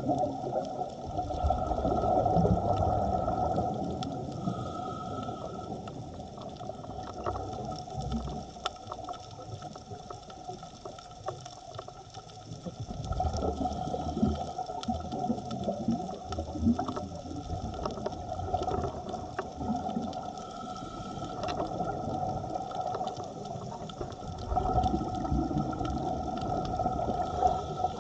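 Underwater sound through a diving camera's housing: three swells of low, gurgling bubble noise, about ten seconds apart, from a scuba diver's exhaled breath venting through the regulator. Under them runs a steady faint hum.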